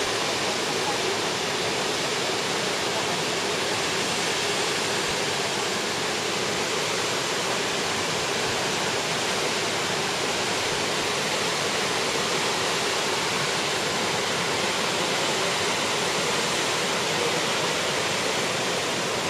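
Steady rushing of a large waterfall: an even, unbroken hiss of falling water that keeps the same level throughout.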